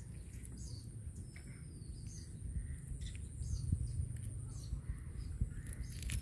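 Scattered faint bird chirps over a steady low rumble.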